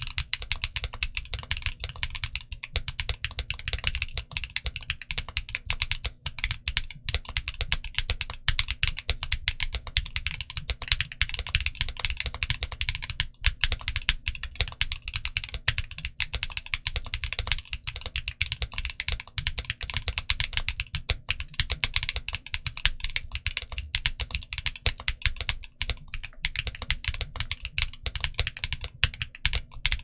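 Fast, continuous typing on a TG67 v3 mechanical keyboard fitted with Gateron Smoothie linear switches and Cherry-profile dye-sub PBT keycaps: a dense, steady run of keystrokes with no pauses longer than a moment.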